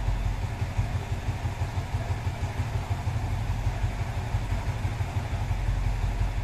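Yamaha R15 V3's 155 cc single-cylinder four-stroke engine, fitted with an S2 racing camshaft and a Juken 5 ECU, idling at about 1,400 rpm on a dynamometer with the rear wheel stopped. It drops away sharply at the very end.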